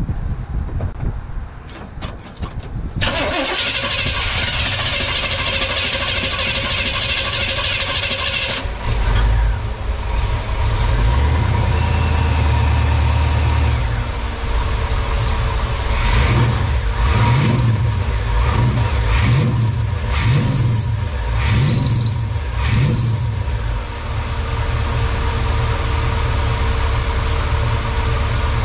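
Chevrolet 454 big-block V8 cranking on the starter for several seconds and catching about nine seconds in, slow to start because it is a cold start with the electric choke not hooked up. It then runs, is blipped through a quick series of revs, and settles back to a steady idle.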